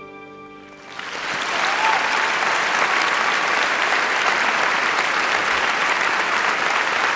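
The last held chord of the song fades out, and about a second in a concert audience breaks into applause that swells quickly and then holds steady.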